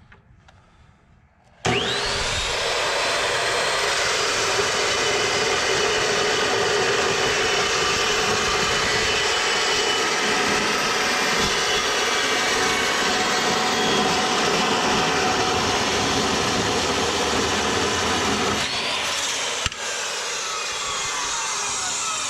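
Metal-cutting chop saw starting up about two seconds in and cutting through a steel pipe coupon with a steady, loud grinding. Near the end the motor is released and the blade winds down with a falling whine. The cut leaves the metal just barely warm.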